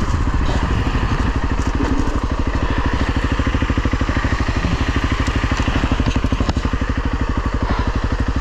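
Honda CRF300 Rally's single-cylinder engine settling to idle about a second in as the bike comes to a stop, then running with a steady, even beat of rapid firing pulses. Faint scattered clicks sit over it.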